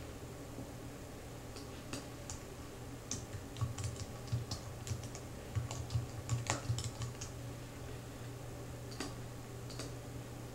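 Computer keyboard typing: scattered keystrokes at first, then a quick run of them about three to seven seconds in, and two more near the end, over a steady low hum.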